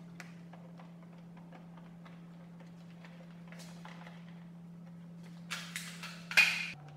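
Light clicks and rustling of hands handling wiring and fittings on an ATV's LED light-bar mount, with a louder rustling scrape about five and a half seconds in and a stronger one just before the end. A steady low hum sits underneath.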